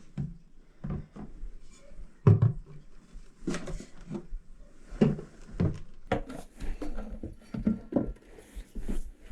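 Irregular knocks and clunks of hard objects being handled and set down in a small bathroom, the loudest about two seconds in.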